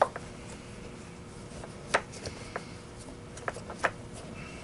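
Hands fitting parts into a Miele C3 canister vacuum's plastic housing: scattered clicks and knocks of plastic, the loudest at the start and about two seconds in, over a faint steady hum.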